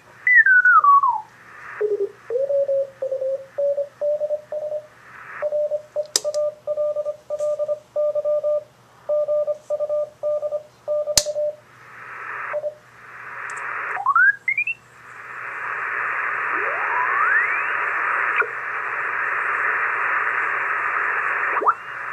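Icom IC-746 receiver tuned across the 40-metre CW band, heard through a SCAF-1 CW audio filter. Steady band hiss with whistles that sweep in pitch as the dial passes carriers. For about ten seconds a Morse code signal is keyed at a steady tone, with a fainter, higher-pitched Morse signal alongside it for part of that time.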